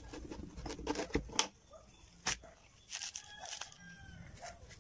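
Small knife cutting into a fresh banana leaf stalk: a quick series of crisp cuts and snaps over the first second and a half, one more sharp snap about two seconds in. After that comes quieter handling as the stalk pieces are pressed together.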